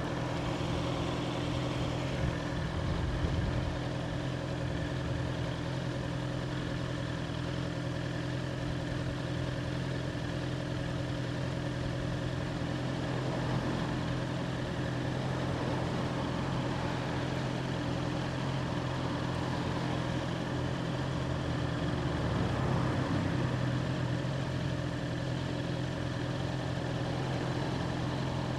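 A 2021 Honda CBR650R's inline-four engine idling steadily at an even pitch. A low rumble swells briefly about three-quarters of the way through.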